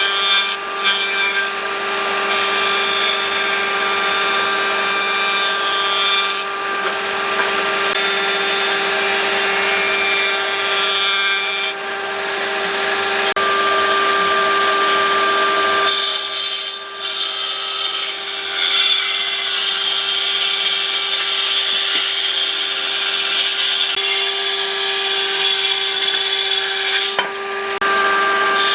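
Electric power tool working wood: a steady motor whine under a rough rasping from the cut, which eases and picks up again several times as the tool bites into the wood and is lifted off.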